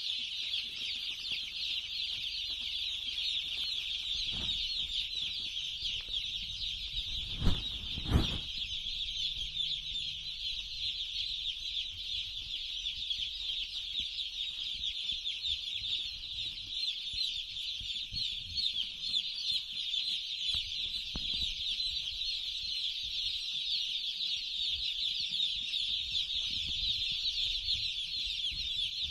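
A dense, unbroken chorus of high-pitched cheeping from a large flock of broiler chickens. Two loud thumps come about seven and eight seconds in.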